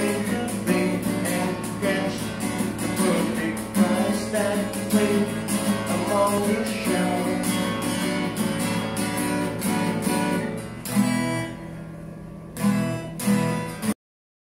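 Steel-string acoustic guitar strummed, with a man singing along. The playing thins to a few last strums and cuts off suddenly near the end.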